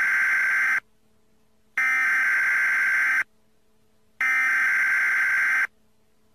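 Electronic buzzer tone sounding in a regular on-off pattern, each buzz about a second and a half long with about a second's gap between. Three buzzes are heard.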